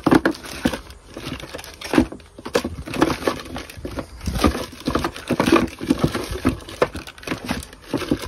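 Hands rummaging through boxed run capacitors and parts in a plastic parts box: irregular knocks, clatter and rustling of cardboard and plastic packaging.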